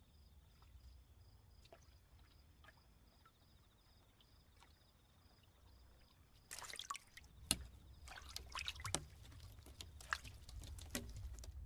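Faint crickets chirping. From about six and a half seconds in, a crackling hiss with sharp ticks joins them, the crickets stop, and a low rumble builds toward the end: the first rumble of an earthquake.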